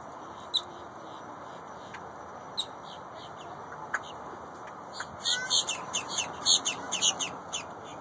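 Grackles calling: a few single sharp chips in the first seconds, then a quick run of harsh, chattering calls from about five seconds in, over steady background noise.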